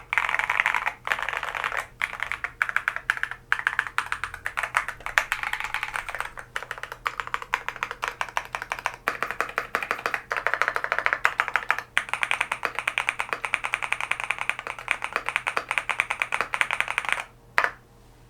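Fast, continuous typing on a Thera75 V2 75% mechanical keyboard, gasket-mounted and fitted with Lotus switches: a dense stream of key clacks. It stops near the end with one last separate key press.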